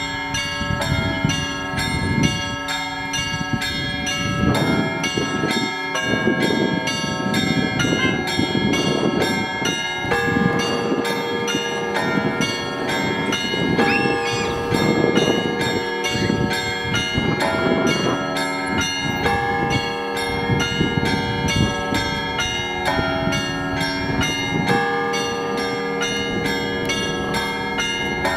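Orthodox church bells ringing, many bells of different pitch struck in a fast, steady rhythm so that their tones overlap in one continuous peal.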